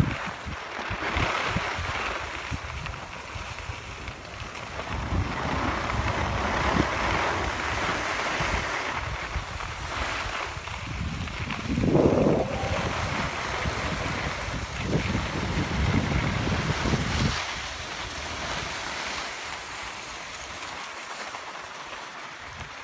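Wind buffeting the microphone, with a steady hiss of skis sliding over packed snow. A louder gust comes about halfway through, and the rumble eases near the end.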